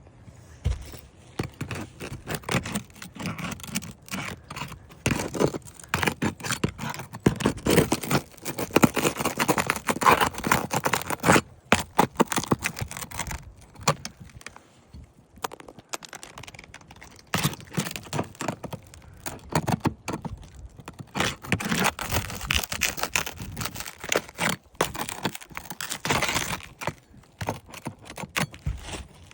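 Pry bar scraping and prying under a brittle asphalt roof shingle, with crackling and tearing as the shingle is worked loose from its sealant and nails. It comes in spells of busy scraping with a few short pauses.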